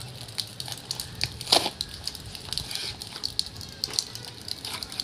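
Small cardboard box of brake pads being handled and opened by hand: irregular crackling and rustling of card and packaging, with one louder crackle about one and a half seconds in.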